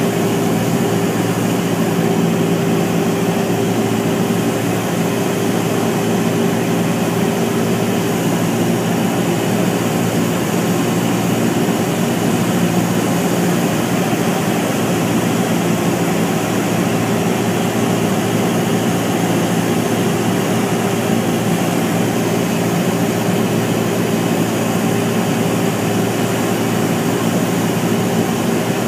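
Light single-engine airplane's piston engine and propeller running at a steady power setting, heard from inside the cockpit as a continuous drone with a hiss over it.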